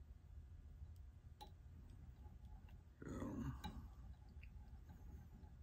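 Near-silent room tone with a steady low hum and a few faint clicks from a bobbin and thread being worked on a hook in a fly-tying vise. About three seconds in, a brief louder sound.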